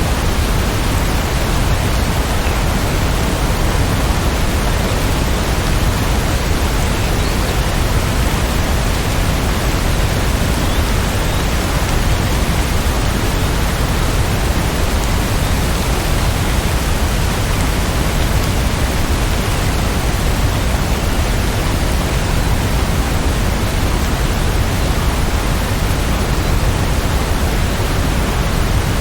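Steady rain: an even, unchanging wash of noise, heaviest in the low end.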